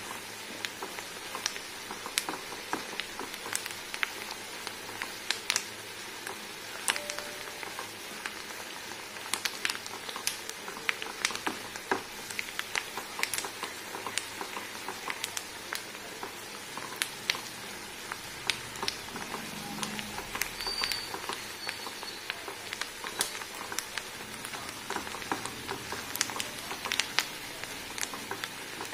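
Sago pearls cooking in pink sugar syrup at a hard boil on high heat, with many irregular pops and crackles of bursting bubbles over a steady hiss.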